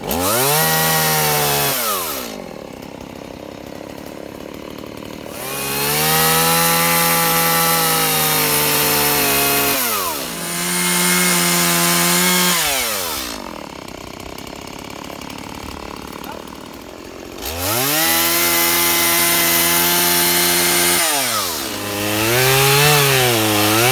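Petrol chainsaw being throttled up to full revs and held, dropping back to idle twice for a few seconds in between. Near the end the engine speed wavers down and up, as when the chain is loaded in a cut.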